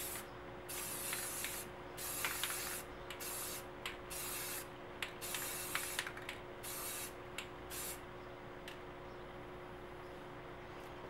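Aerosol can of deep blue gloss spray paint hissing in repeated short bursts, each under a second, with brief pauses between them, as paint is sprayed through a stencil. The spraying stops about eight seconds in, leaving a faint steady hum.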